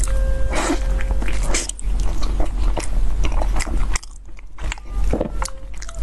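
Close-miked biting and chewing of a soft cream- and red-bean-filled mochi dessert: mouth sounds with many small clicks, dipping quieter about four seconds in, over a steady low hum.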